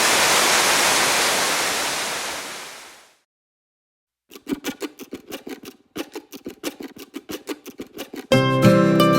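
Steady rush of a waterfall that fades out over the first three seconds, followed by about a second of silence. Music then starts with quick plucked notes, and fuller plucked-string music comes in near the end.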